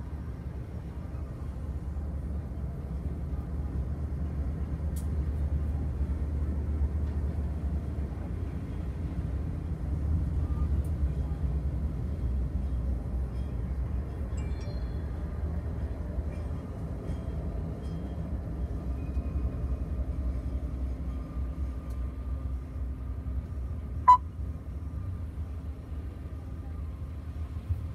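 BNSF freight train rolling past on the adjacent track, heard from inside a closed vehicle: a steady low rumble as the locomotives and then double-stack container cars go by. A single short sharp click about 24 seconds in.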